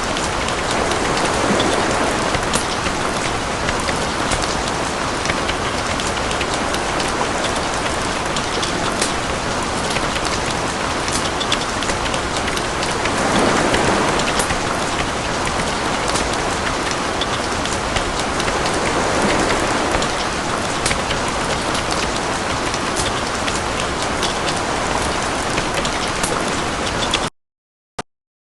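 Steady rain falling, with individual drops ticking sharply through the wash and the sound swelling louder a few times. It cuts off suddenly near the end, followed by a single click.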